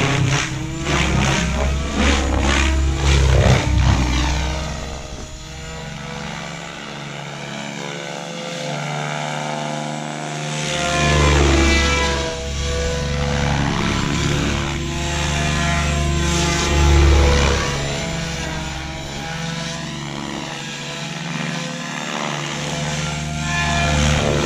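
Electric Goblin 630 RC helicopter flying freestyle with its rotor head at 2,000 rpm: the whine of rotor and motor rises and falls in pitch as it swoops through passes and manoeuvres. It dips quieter for a few seconds about a third of the way in, then sweeps up and down several times.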